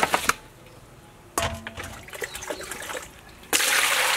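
Whole raw fish tipped from a plastic basket slap and knock into a metal basin, with a second clatter and a brief metallic ring about a second and a half in. About three and a half seconds in, a steady gush of water starts pouring into the basin over the fish.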